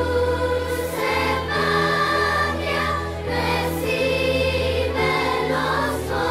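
Music with a group of voices singing together over sustained low notes.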